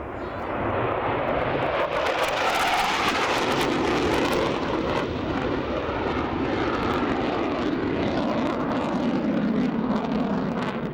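Panavia Tornado IDS jet with its twin RB199 turbofans making a fast, low pass. The noise builds over the first couple of seconds and is at its sharpest and most hissing a few seconds in. It then carries on as a deeper rumble that slowly drops in pitch as the jet moves away.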